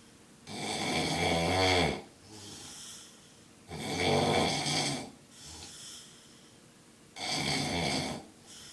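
A man snoring loudly: three long rasping snores about three and a half seconds apart, each followed by a softer breath.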